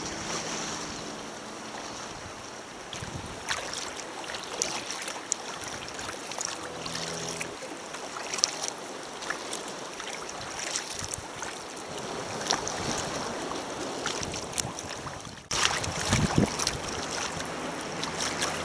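Sea kayak paddles dipping and splashing with water lapping against the hull, a run of short irregular splashes over a steady wash of sea noise. The sound jumps louder at a cut about three-quarters of the way through.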